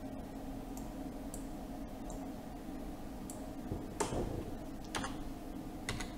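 Computer keyboard and mouse clicks as a time value is typed in: a few faint ticks, then three sharper clicks about a second apart in the second half, over a steady low hum.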